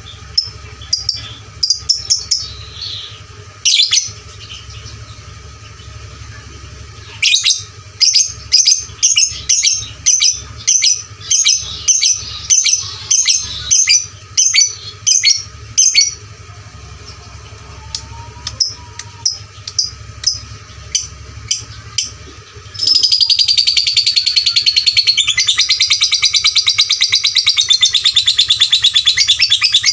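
Lovebird calling: sharp high chirps repeated about twice a second, then about two-thirds of the way in it breaks into a long, continuous rapid chatter.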